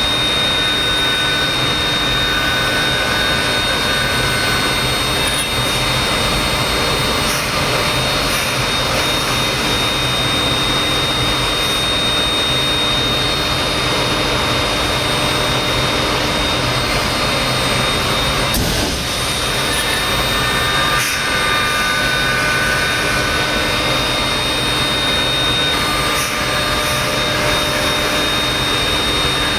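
5-axis CNC router spindle running at speed with a steady high whine while its small bit mills a carved workpiece.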